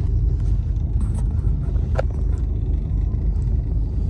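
Steady low rumble of a passenger train running, heard inside a sleeper coach, with a single sharp click about two seconds in.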